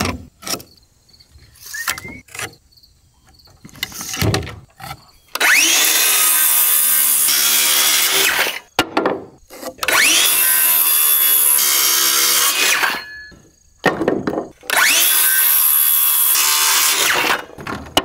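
Battery-powered circular saw making three cuts through lumber, each lasting about three seconds. Each cut opens with the motor whine rising as the blade spins up. A few clicks and knocks of handling the boards come before the first cut.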